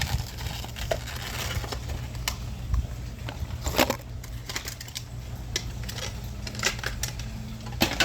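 Plastic blister packaging of a Majorette die-cast toy car being pried and cracked open by hand: irregular sharp clicks and crinkles, with a louder crack about four seconds in.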